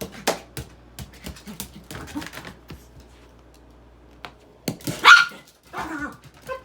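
Small dog barking: a loud short bark about five seconds in, then a couple of smaller ones near the end, after a run of light taps and clicks.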